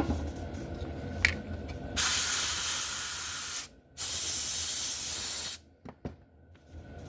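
A click, then two long hissing sprays from a pressurised can, each about a second and a half, with a short break between them.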